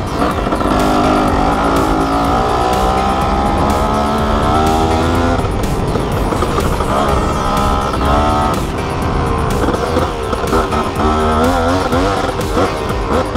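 Motorcycle engine running while riding, its pitch climbing and falling with the revs over a heavy low rumble of wind and road.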